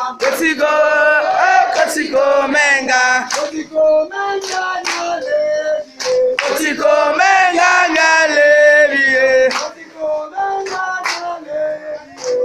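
A group of young people singing and chanting together, mostly male voices with some female ones, with scattered hand claps. The singing comes in phrases, breaking off briefly about four and about six seconds in and dipping near ten seconds.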